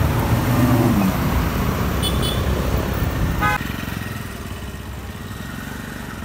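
Street traffic with engines running low and a rumble that wavers in pitch, broken by short horn toots just after two seconds and about three and a half seconds in. The rumble drops away abruptly right after the second toot.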